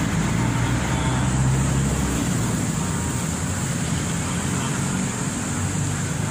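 Road traffic running steadily, with a low engine rumble from a passing vehicle that drops away about two seconds in.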